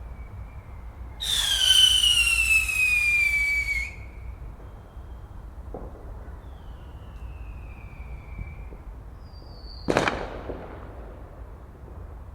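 Fireworks going off: a loud whistling firework about a second in, its whistle falling in pitch for over two seconds. Fainter falling whistles follow, then a single sharp bang about ten seconds in.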